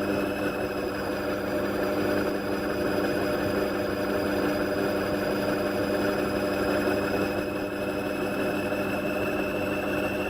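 Indesit washing machine with its drum spinning: the motor's whine finishes rising at the very start and then holds steady over a constant rushing drum noise.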